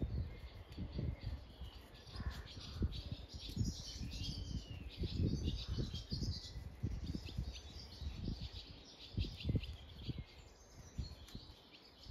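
Wild birds chirping and singing in the background, over frequent irregular low thumps and rustles.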